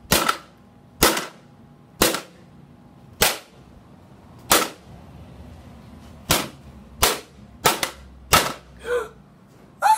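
A long pole smacking down on a box on a stool, nine sharp hits at uneven spacing of about one a second, with a longer gap near the middle. The box is being struck to break it open.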